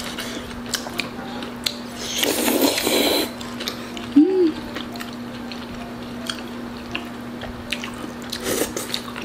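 Close-miked eating of jjajangmyeon noodles: scattered clicks of utensils on a bowl and wet chewing, with a louder wet slurp lasting about a second a couple of seconds in, and a short hummed "mm" about four seconds in.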